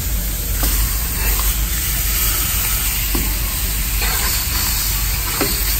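Chops sizzling on a Blackstone flat-top griddle, a steady hiss of frying meat and fat as they are turned with metal tongs, with a few faint ticks through it.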